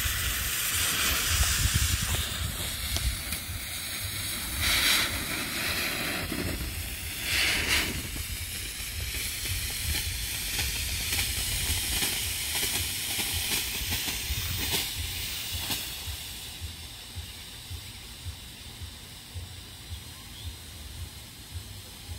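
Two TNT Smoke Chest smoke fireworks hissing as they burn and pour out smoke. The hiss swells twice, about five and seven and a half seconds in, and dies down over the last several seconds.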